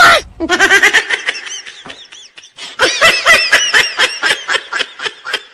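Laughter in two long runs of quick, repeated ha-ha pulses, the second run starting about three seconds in.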